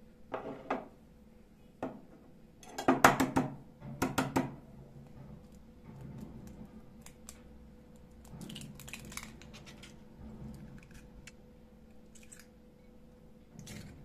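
Ceramic plates clinking and clattering as they are set down and handled on a kitchen counter, loudest in two bursts about three and four seconds in. Softer taps and handling follow as an egg is cracked into the deep plate.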